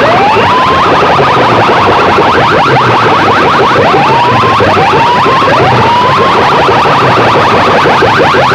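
DJ sound-system speaker rig playing an electronic competition sound-effect track at very high volume: short rising synth sweeps repeat under a second apart over a rapid buzzing pulse. The sweeps drop out shortly after the start and return about four seconds in.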